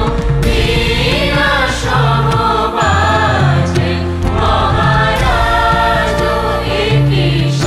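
Music with a choir of voices singing over sustained low bass notes.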